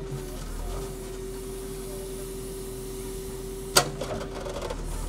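JCB backhoe loader running while its backhoe arm digs, a steady engine and hydraulic hum with a constant whine. About four seconds in, a single sharp knock.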